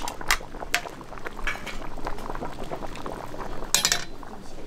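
Metal ladle scooping and pouring soup broth in a large cauldron, with sharp clinks of the ladle against the pot. The loudest clinks come in a quick cluster near the end.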